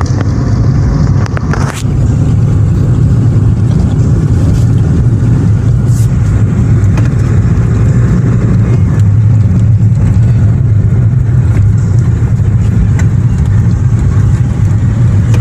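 1996 Toyota Corolla being driven on the road, heard from inside the cabin: a steady low rumble of engine and tyre noise.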